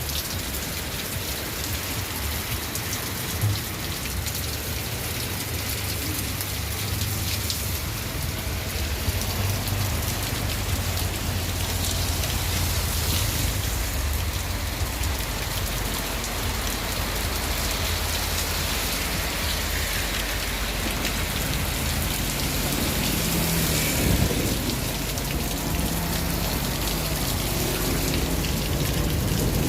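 Heavy rain falling steadily, with a low rumble underneath and a brief knock about three and a half seconds in.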